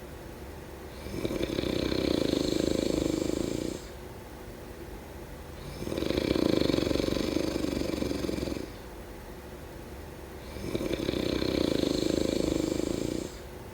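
Snoring in a slow, even rhythm: three long snores of about two and a half seconds each, coming roughly every five seconds, with quieter breathing between them.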